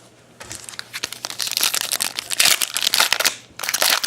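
Crinkling of a trading-card pack wrapper being opened and handled: a dense run of crackles from about half a second in, a short break, then more near the end.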